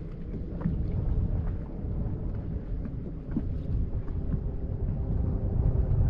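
Strong wind buffeting the microphone: a steady low rumble, with a faint hum running underneath.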